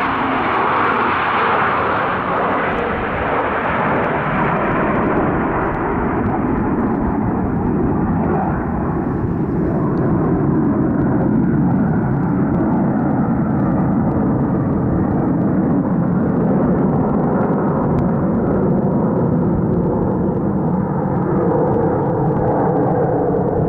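Jet engine roar of Blue Angels F/A-18 Hornets in flight, loud and continuous. The high hiss dulls over the first five or six seconds, leaving a steady deep rumble.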